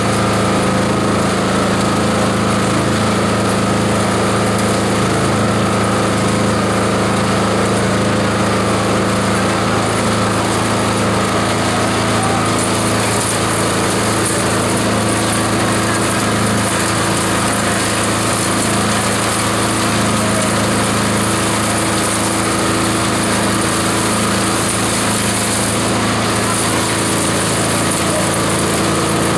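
Multi-purpose chopper/shredder machine running steadily as fibrous material is fed into its hopper: a continuous motor hum with a higher whir over the dense noise of the material being shredded.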